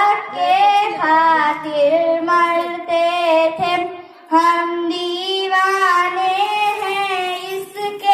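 A young girl singing an Urdu naat, a devotional poem in praise of the Prophet Muhammad, solo into a microphone, drawing out long, wavering held notes. She breaks for a breath about four seconds in, then goes on.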